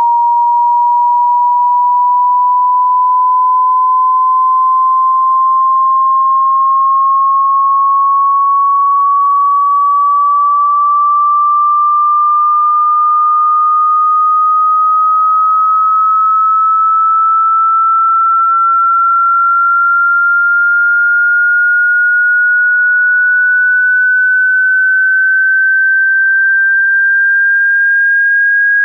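Hearing-test sine tone: a single pure electronic tone, loud and steady in level, sweeping slowly and evenly upward in pitch.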